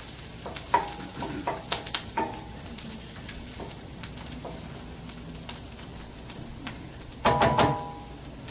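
Food sizzling in a stainless steel sauté pan while a wooden spoon stirs it. The spoon knocks against the pan several times about one to two seconds in, each knock with a short metallic ring, and there is a louder ringing clatter of knocks shortly before the end.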